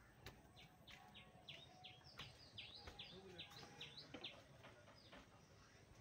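A bird calling a fast series of short, high chirps that each slide down in pitch, going for about four seconds, faint over low background noise.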